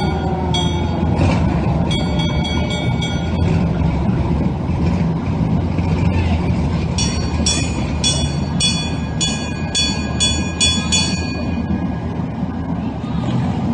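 A passing vehicle's engine rumbling steadily, with two runs of rapid, high-pitched horn toots: a short run early, and a longer run of about two toots a second past the middle.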